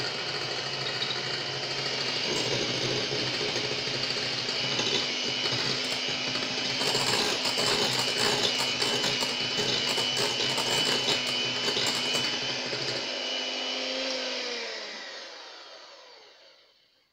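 Electric hand mixer beating whipped egg-and-sugar sponge batter in a bowl: a steady motor whine with the beaters whirring through the batter. About fourteen seconds in it is switched off and the motor winds down, its pitch falling, until it stops.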